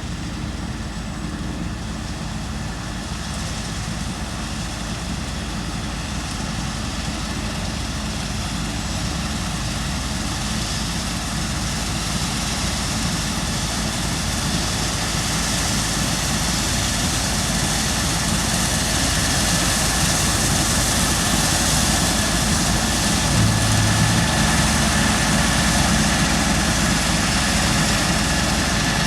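Claas Lexion 7600 combine harvester running while cutting beans: a steady engine and machinery drone with a hiss above it, growing gradually louder as it comes nearer.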